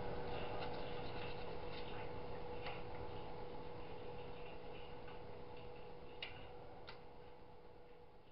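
Steady machine hum with a regular ticking, slowly fading away; two light sharp clicks about six and seven seconds in.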